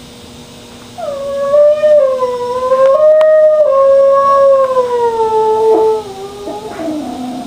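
Dog howling, upset at not being taken for a walk: one long howl starts about a second in, holds and slowly falls in pitch, then breaks off about six seconds in into a quieter, lower, falling whine.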